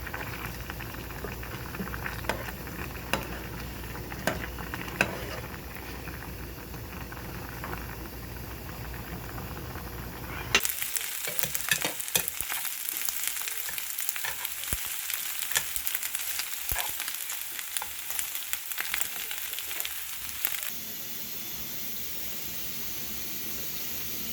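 Food frying in a pan, sizzling with scattered clicks at first. About ten seconds in the sound changes abruptly to a brighter, crackling sizzle full of small pops. Near the end it settles into a steady hiss.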